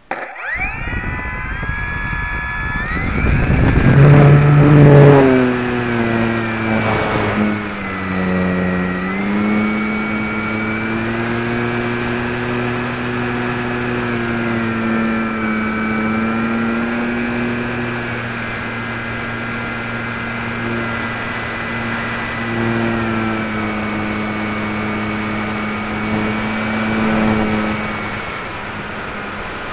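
Electric motor and propeller of a HobbyKing Walrus RC glider, picked up by a keychain camera on the wing. It starts suddenly with a rising whine. About four seconds in comes a loud rush of air noise, and then the motor runs steadily with a humming whine whose pitch dips and rises a little as the throttle changes.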